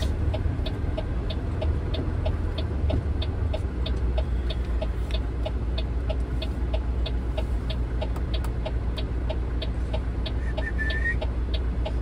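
Heavy diesel truck engine idling as a steady low rumble, with a fast, even mechanical ticking of about four to five clicks a second over it and a brief high squeal about ten and a half seconds in.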